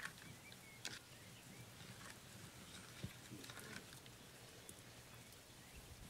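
Near silence: quiet room tone with a few faint, soft clicks.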